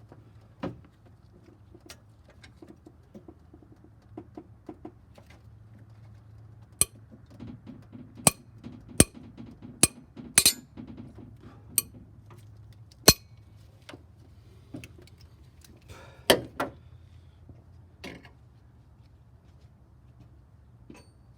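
Sharp metallic clinks of hand tools striking and knocking against metal while a cylinder head bolt is worked loose, about a dozen irregular strikes with the loudest in the middle stretch.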